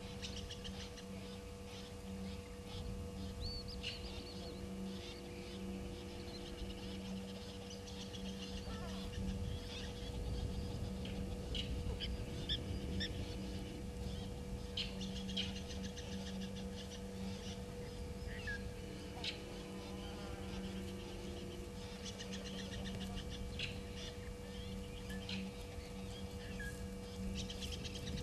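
Scattered short bird calls and chirps over a steady low hum and a low rumble.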